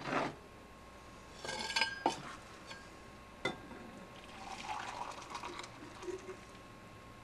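Water poured from a stainless steel bottle into a glass mug for about a second and a half, after a few knocks and clinks as the metal bottle and glass are handled.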